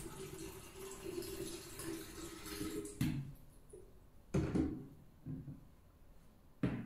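Water poured from a glass jug into the open inner pot of an electric thermo pot, filling steadily and stopping abruptly about three seconds in. This is followed by a few hard knocks, the loudest about halfway through, as the jug is set down and the plastic lid is picked up.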